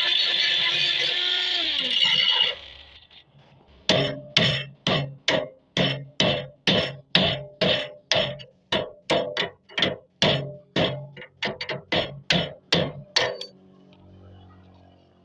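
A loud steady sound with several held tones cuts off about two and a half seconds in. After a short gap, a hammer strikes metal about two dozen times at a steady two to three blows a second, each blow ringing briefly, and stops near the end.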